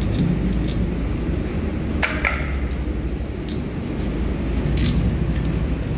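Steady low rumble of running machinery, with a sharp metallic clink that rings briefly about two seconds in and a shorter tap near five seconds, from metal tools working on a flanged bilge valve.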